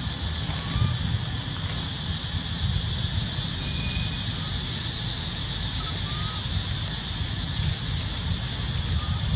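Outdoor ambience dominated by wind buffeting the microphone, heard as a steady low rumble, over a constant high hiss, with a few faint short chirps scattered through.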